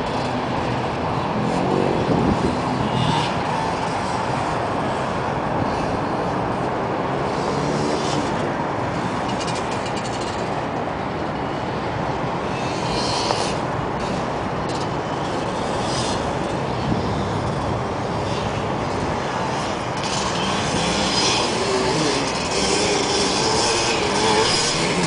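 Motocross bikes running on a dirt track: a steady engine rumble, with revs rising and falling more clearly near the end.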